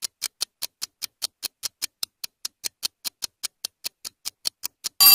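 Quiz countdown timer ticking steadily at about five ticks a second, then a loud bell rings near the end, signalling that the answering time is up.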